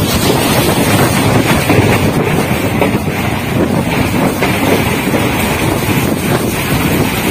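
Running noise of a moving passenger express train, heard at an open window: a steady rumble of wheels on the track mixed with wind rushing past and buffeting the microphone.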